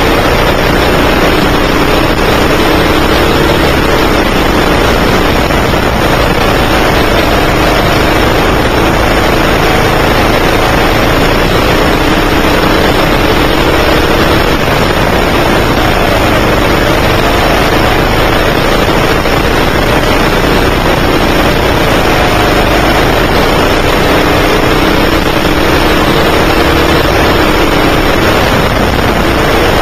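A 9 hp go-kart's engine heard onboard, running continuously while the kart laps. Its pitch rises and falls with the throttle through the corners, under a loud steady rush of noise.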